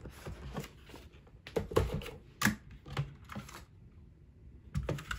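STOGA 60% mechanical keyboard with brown switches being handled and set down on a table: irregular clicks and clacks of its keys and case, a short pause, then a few more near the end.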